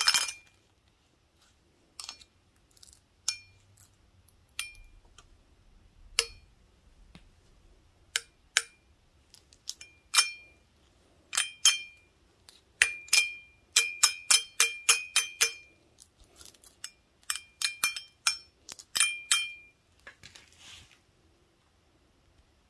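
Large glass beer stein tapped with wooden toothpicks: sharp clinks that each ring briefly at the same bright pitch. They come scattered at first, then in quick runs of taps in the second half.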